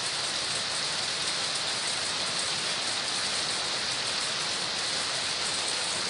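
Heavy typhoon rain pouring onto rooftops and a street: an even, steady hiss with no break.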